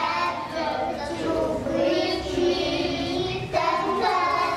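A group of young children singing together in unison, holding sung notes with brief breaks between phrases.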